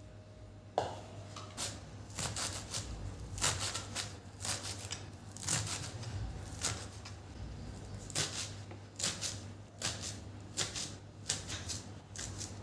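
A series of short, irregular clicks and knocks, about one or two a second, beginning with a sharp click about a second in, over a steady low hum.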